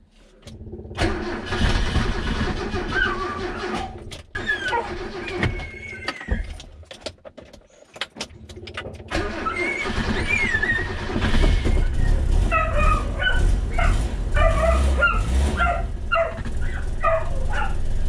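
Toyota KE70 Corolla's engine being cranked on the starter in repeated attempts to start it, on a battery that is low. A dog whimpers and yips through the second half.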